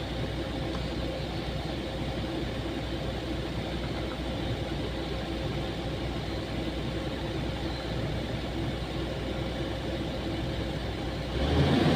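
Excavator's diesel engine running steadily at a low, even drone; near the end it suddenly gets louder and its pitch changes.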